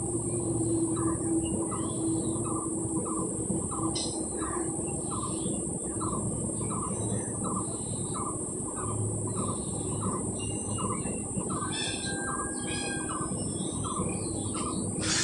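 Birds chirping and calling, busiest about twelve seconds in, over a steady background hum and a soft tick that repeats about twice a second.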